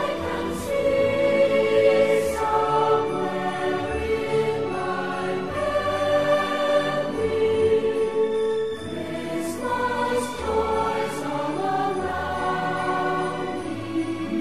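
Background music: a choir singing slow, held notes.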